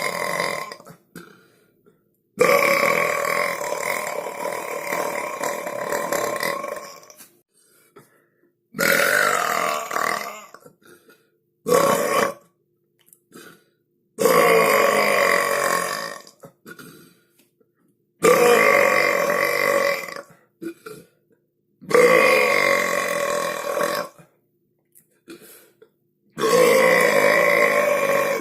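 A string of long, loud human belches, one after another with short silent gaps. There are about seven, most lasting two to four seconds and the longest about five, each starting and stopping abruptly.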